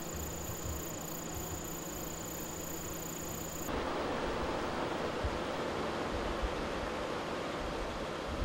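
Steady rushing of a river flowing over rapids. For the first few seconds a steady high-pitched insect drone sounds over it, cutting off suddenly about four seconds in as the rush of water grows fuller.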